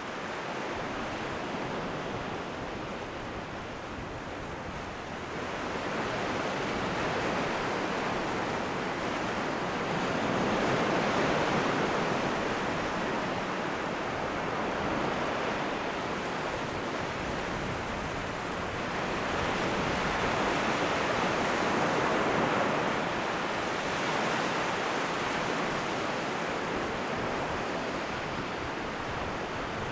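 Small sea waves breaking and washing up a flat sandy beach as a steady rush of surf, swelling louder about ten seconds in and again past two-thirds of the way through.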